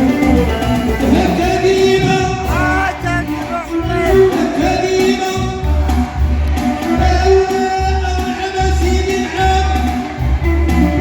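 Hassani Saharan song performed live: a male voice singing with sliding, ornamented notes over amplified instrumental backing with a steady bass beat.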